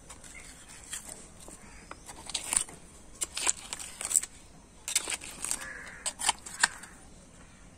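Butcher's knife cutting and scraping through an animal head's bone and gristle on a wooden block: a series of sharp crunches and clicks as the blade works, with a crow cawing once about six seconds in.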